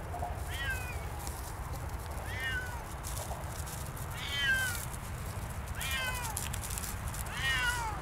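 Siamese cat meowing five times, about every one and a half to two seconds, each call short and falling in pitch.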